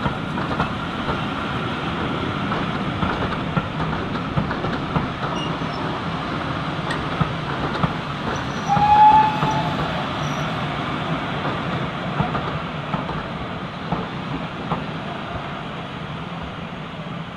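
Heritage railway passenger coaches rolling slowly past on the track, wheels rumbling and clicking over the rail joints. A short high squeal about nine seconds in is the loudest moment.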